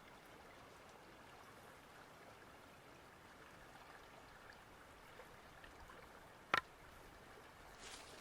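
Faint, steady outdoor ambience like a trickling stream, with one sharp click or knock about six and a half seconds in.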